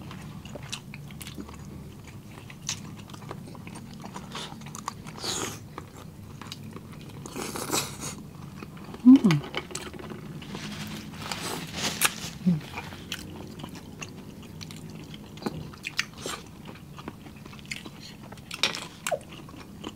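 Close-miked eating of seafood: wet chewing and smacking with many small clicks of shells and shellfish being handled. Several longer slurps come around the middle as an oyster is sucked from its shell, and a couple of short hums of enjoyment come in about halfway through.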